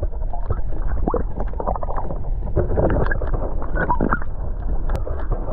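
Muffled water noise picked up with the microphone below the surface: a constant low rumble with irregular gurgles, knocks and clicks, and little high end.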